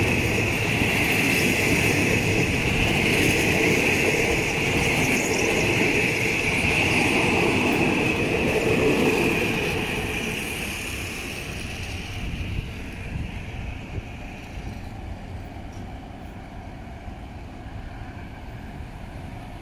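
Passenger train coaches rumbling and clattering past on the rails, with a steady high-pitched tone over the noise. About halfway through, the sound fades as the end of the train moves away, leaving a few faint clicks from the wheels.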